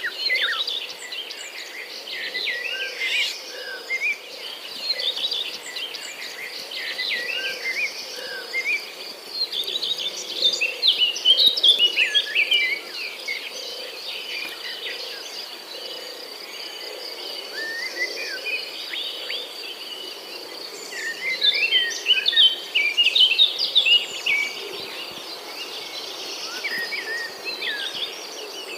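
Several birds chirping and twittering over a steady high-pitched insect trill, with busier, louder stretches of song twice.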